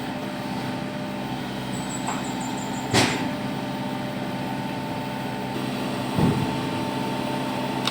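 Backhoe loader's diesel engine running steadily, with a sharp clank about three seconds in and a short low thump a little after six seconds.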